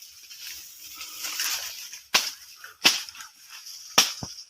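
A blade chopping into a banana plant's trunk: sharp strikes about two seconds in and again near three seconds, then two quick ones near the end. Before them comes a rustling hiss.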